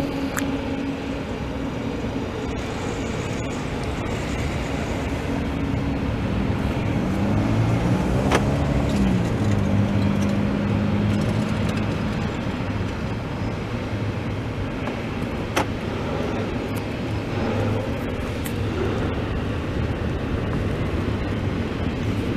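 Freight train of double-stack container cars rolling steadily past a road crossing: a continuous rumble of wheels on rail, mixed with road traffic.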